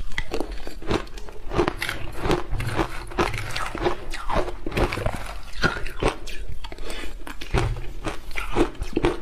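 A person chewing a mouthful of crunchy shaved ice coated in milk powder, crunch after crunch several times a second.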